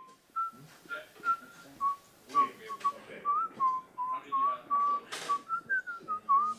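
A man whistling a meandering tune through pursed lips: a string of short, clear notes with small slides up and down between them.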